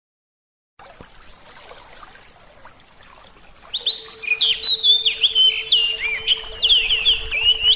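Birds singing: many quick, high chirps and twitters with rapid rises and falls in pitch. They come in suddenly and loud about four seconds in, after a faint start, over a steady low hum.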